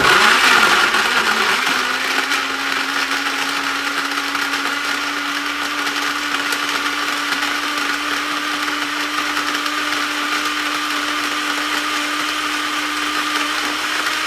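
Cadence 600 W personal blender running continuously, very noisy, blending frozen strawberries and acerola with juice and water. It is loudest and roughest for the first couple of seconds, then settles into a steady motor whir.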